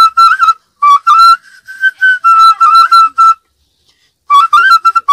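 Sutuli, the Assamese folk vessel whistle, blown in a tune of short, high whistling notes that step up and down, with a pause of about a second near the end before the tune starts again.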